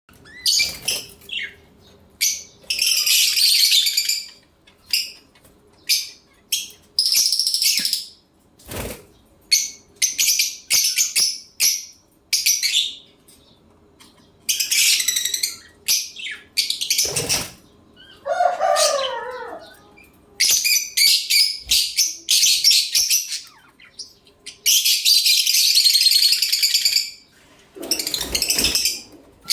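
Lovebirds screeching, with shrill, harsh calls in repeated bursts of about a second each.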